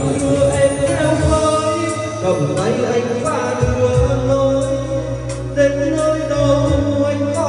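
A man singing a Vietnamese ballad into a karaoke microphone over a backing track with bass and drums, played loud through a newly installed karaoke speaker system as a sound test. He holds long notes, with brief breaks about two seconds in and near the end.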